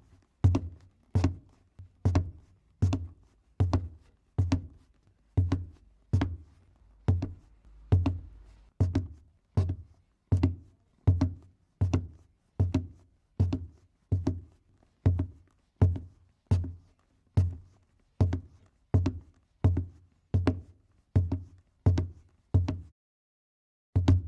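Footsteps walking on a wooden floor at an even pace, about three steps every two seconds, each a low thud with a sharp click. The steps stop briefly near the end and then start again.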